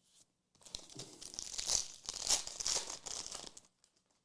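Trading card pack wrapper being torn open and crinkled, a crackly tearing sound that starts about half a second in and lasts about three seconds.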